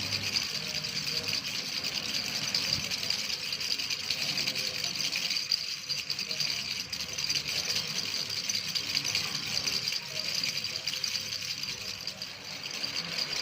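A baby's rattle shaken continuously, a dense, steady patter of small beads ticking inside it.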